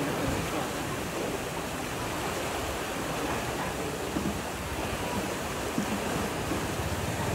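Steady rush of fast, turbulent river water pouring past a dam, with a couple of faint knocks partway through.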